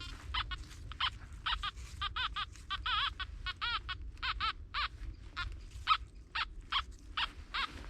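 Makro Multi Kruzer metal detector giving a run of short target tones, several a second, each chirp rising and falling in pitch as the coil is swept back and forth over a buried target.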